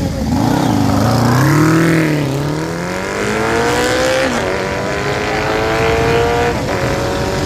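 Motorcycle engine revved up and down, then accelerating hard with steadily rising pitch as the bike pulls away. The pitch dips briefly at two up-shifts, about four seconds in and again near the end.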